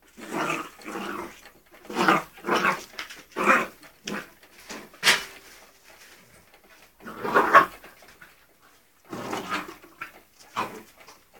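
Springer spaniel puppy making short play growls in about ten brief bursts, a second or two apart.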